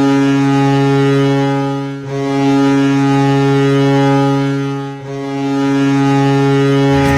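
Ice hockey arena goal horn blowing for a goal: a loud, low, steady horn tone that breaks briefly about two and five seconds in, giving long separate blasts.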